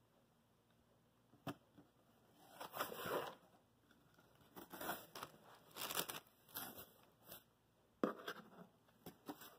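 Cardboard shipping box being opened by hand: flaps scraped and folded back and plastic air-pillow packing rustling, in a series of short bursts after a single sharp knock about one and a half seconds in.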